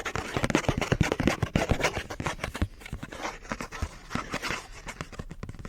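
Rapid tapping and scratching on a fake Pokémon card close to the microphone: a dense run of sharp clicks over a scratchy rasp.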